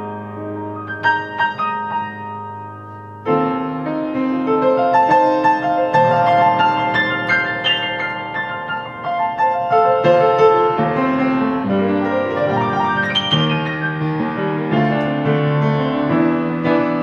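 Hornung & Møller grand piano being played in a free improvisation, picked up by a mobile phone's microphone. A soft held chord gives way about three seconds in to a suddenly louder, busier run of many notes across the keyboard.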